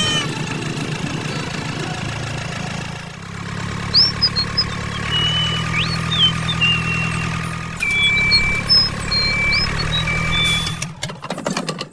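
Steady engine-like hum, running evenly, with high chirping, whistling tones over it from about four seconds in. The hum stops near the end.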